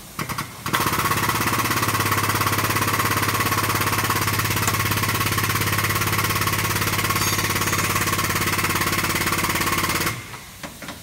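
Pump of a chain-pulling frame straightener running loud and steady with a fast, even pulse for about nine seconds, powering the hydraulic ram that pulls the car's bent front apron leg straight. It gives two short spurts just before it starts and a few more just after it stops.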